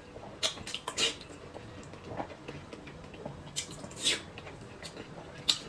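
Close-miked eating sounds of noodles and boiled eggs: scattered short, wet mouth noises of chewing and sipping, with a few sharper clicks and smacks.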